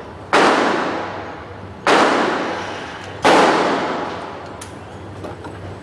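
Three gunshots about a second and a half apart, each followed by a long echoing decay, then a few faint clicks.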